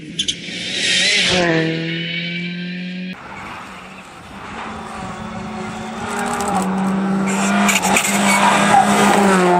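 Rally cars at full throttle on a tarmac stage: engines revving through gear changes, with tyres squealing as the cars slide through bends. The sound cuts abruptly about three seconds in to a second car, a Škoda Fabia R5 with a turbocharged four-cylinder, whose engine climbs to its loudest near the end.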